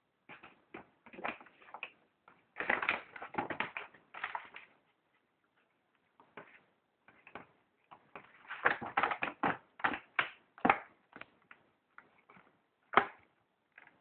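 Brown paper shopping bag crinkling and rustling in short bursts as a puppy tugs at its string handle with its teeth, with a sharp click near the end.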